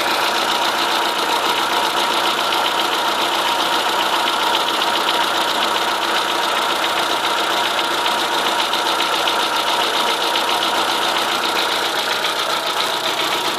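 Chevrolet Corsa 1.0 8V VHC engine idling steadily, with a steady abnormal noise running with it. The noise stops when the alternator belt is slackened and persists with a different alternator and a new tensioner; the owner suspects a worn main bearing but says it could be something else.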